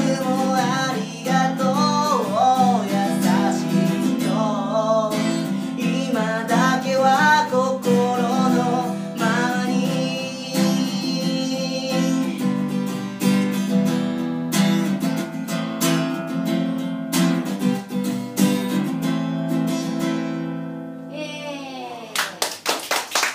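Live acoustic guitar song: singing over strummed chords for about the first ten seconds, then the guitar plays on alone and fades out on a ringing final chord. Applause from a small audience starts near the end.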